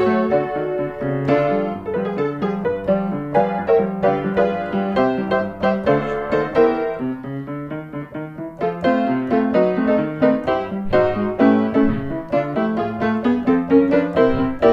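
Background piano music, a busy run of notes that briefly drops in loudness about eight seconds in.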